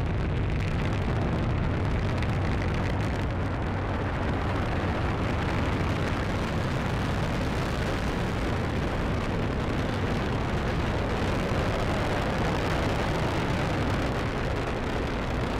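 Steady, deep rumble of a Falcon 9 rocket's first stage climbing after liftoff, its nine Merlin engines running at full thrust and holding an even level throughout.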